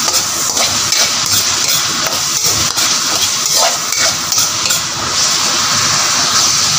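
Diced carrots and potatoes sizzling steadily in hot oil in a wok, with a metal spoon scraping and clinking against the pan now and then as they are stirred.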